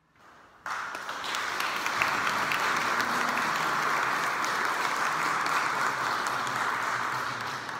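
Audience applauding, starting suddenly just under a second in.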